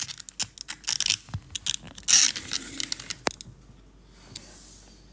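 Handling noise from a phone being moved and set in place: a run of clicks, scrapes and rustles, the loudest a scrape about two seconds in and a sharp click a little after three seconds, then quieter.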